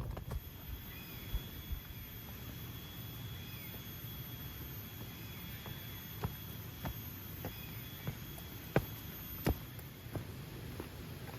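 Quiet forest ambience: a steady high-pitched tone with a short chirp every couple of seconds, and scattered sharp ticks, two of them louder near the end.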